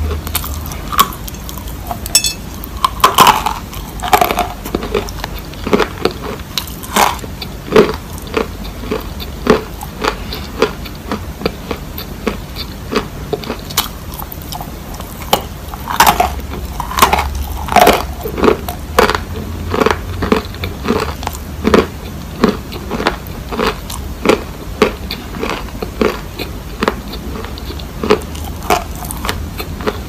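Close-miked crunching and chewing of dry chunks of Turkistan white edible clay: a steady, irregular run of sharp crunches, a couple a second.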